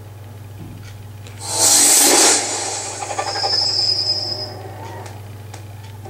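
Channel intro sound effect playing from a TV's speakers: a loud whooshing rush about a second and a half in, fading out over the next few seconds with a high ringing shimmer.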